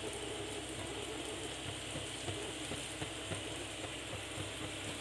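Samosas deep-frying in hot oil in a pan: a steady crackling sizzle of oil bubbling around the pastry, dotted with small irregular pops.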